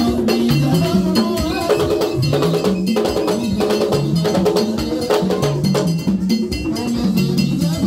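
Vodou ceremony percussion: hand drums and a struck iron bell beating a steady, driving rhythm for the dancers.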